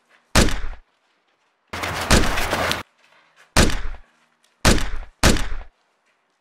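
Gunshots: a single sharp bang, then a loud sustained burst lasting about a second, then three more single shots, the last two about half a second apart.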